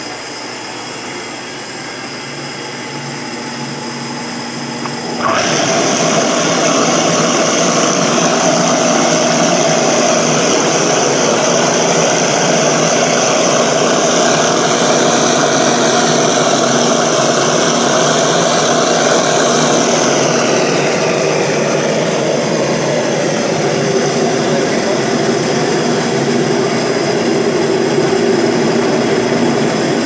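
Kretor 15-litre stainless-steel industrial tilting blender running, its motor driving the blade through a papaya-and-water mix in a swirling vortex. The sound steps up suddenly to a louder, steady run about five seconds in and eases slightly after about twenty seconds.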